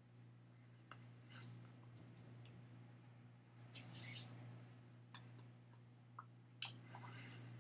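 Faint rustles and small clicks from a man's hands moving and brushing together as he gestures, with a brief hiss about four seconds in, over a steady low hum.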